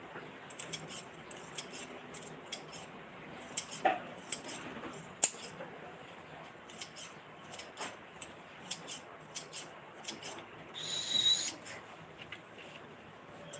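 Irregular light clicks and taps from hands handling material on a table, about one or two a second, with one brief high squeak about eleven seconds in.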